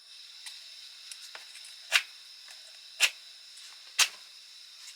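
Small gas camping stove hissing as its gas is turned on, with three sharp clicks or strikes about a second apart as he tries to light it; the burner does not catch yet.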